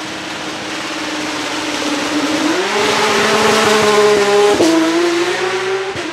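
Porsche 991 GT3 Cup race car's 4.0-litre flat-six accelerating hard, revs climbing, with a quick upshift a little over halfway through as it drives past close by.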